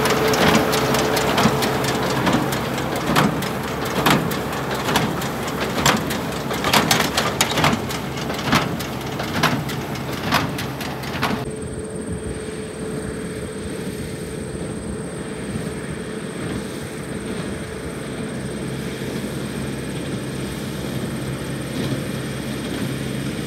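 Small square baler running behind a tractor, heard close up, with repeated sharp knocks as it packs hay and pushes bales up into the basket wagon. About halfway through it gives way to a steadier, duller drone of the tractor and baler working farther off, with a faint steady high-pitched whine.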